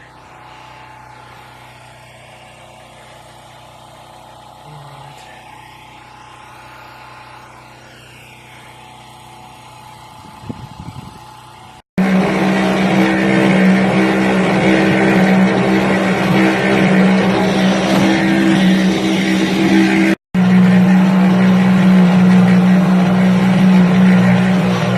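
An engine running steadily. It is fainter for about the first half, then after an abrupt cut it is much louder, with a brief drop-out about eight seconds later.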